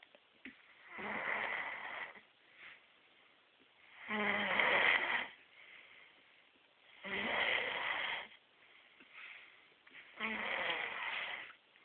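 Snoring: four snores at an even pace, about one every three seconds, each lasting a little over a second.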